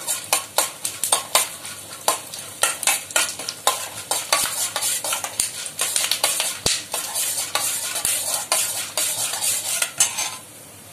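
Long steel ladle stirring and scraping around a stainless steel kadai, in quick clinks and scrapes several a second, over a faint sizzle of peanuts, chana dal, mustard seeds and a dry red chilli frying in sesame oil: the tempering stage. The stirring stops shortly before the end.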